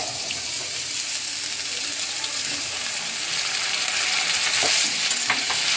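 Diced raw potatoes sizzling in hot mustard oil as they land on frying green peas in a steel kadhai. A slotted steel spoon stirs them, clinking against the pan a few times in the second half.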